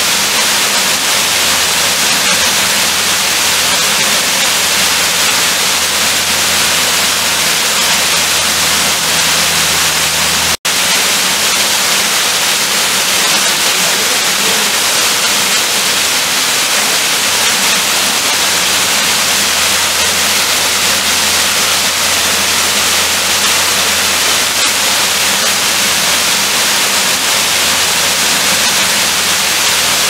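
Steady rush of a waterfall, with a split-second gap in the sound about ten seconds in.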